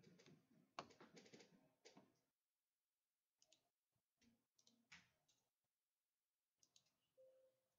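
Faint computer keyboard typing: scattered key clicks in a few short runs with pauses between them.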